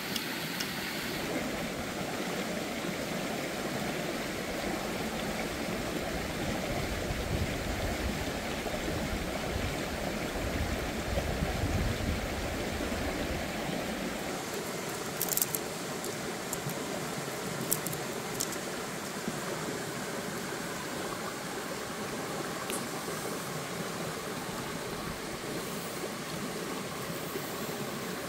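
Steady rushing of a rocky forest stream flowing over small rapids, with a few sharp clicks about halfway through.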